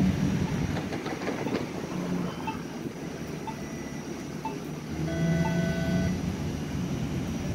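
Bombardier Flexity Outlook low-floor streetcar rolling past on street track, a steady rumble of wheels and running gear. A short steady whine of several pitches joins it about five seconds in.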